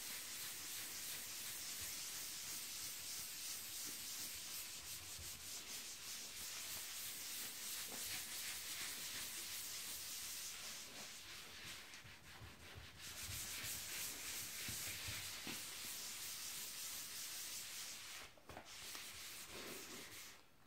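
Hand polishing pad rubbing abrasive compound into the painted aluminium hood of a Ford Mustang. Steady back-and-forth strokes give a faint scrubbing hiss that breaks off briefly twice in the second half.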